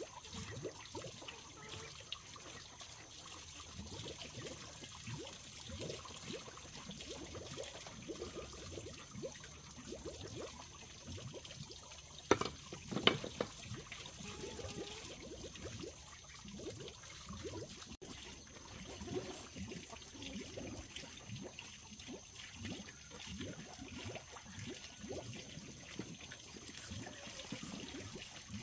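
Water trickling and splashing in small irregular spurts, with two sharper knocks about halfway through and a faint steady high tone behind.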